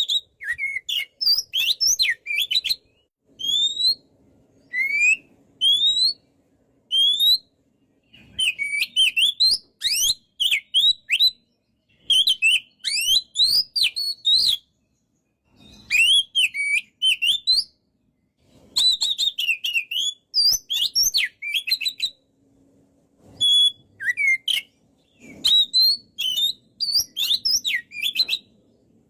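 Oriental magpie-robin (kacer) singing loudly in bursts of varied whistled phrases, separated by short pauses. Several single rising whistles come around five seconds in, and the other phrases are quick, complex runs of notes.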